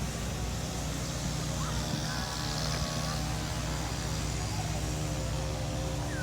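Outdoor traffic background: a steady low engine hum, like a vehicle running, with faint distant voices.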